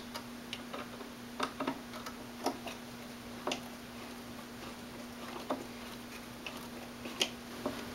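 Several scattered light clicks and knocks of hands handling a wood screw and the pine 2x4 boards of a wooden ladder, with a steady hum underneath.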